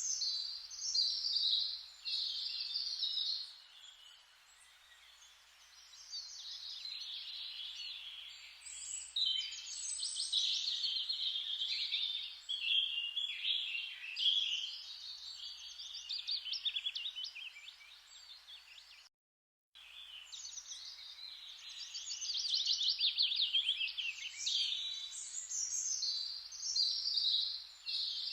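Wild songbirds chirping and trilling, several overlapping songs with fast repeated notes, over a faint steady hiss of forest ambience. About 19 seconds in, the sound cuts out completely for under a second, then resumes.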